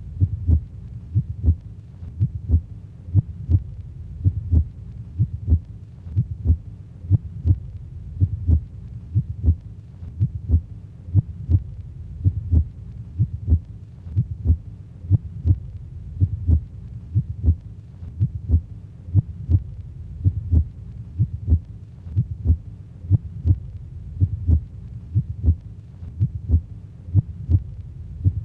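Heartbeat sound: a steady, even rhythm of paired low thumps (lub-dub) over a faint hum.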